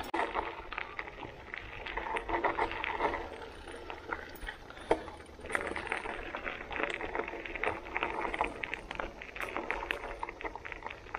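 Mountain bike rolling over a dirt and gravel trail: tyres crunching on loose stones, with many small clicks and rattles.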